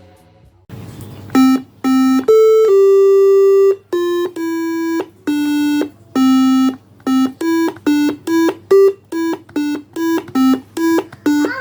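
Homemade Arduino toy keyboard with ice-cream-stick keys playing a 'telolet basuri' bus-horn melody: a run of buzzy electronic notes that start and stop abruptly, mostly short, with one long held note about three seconds in.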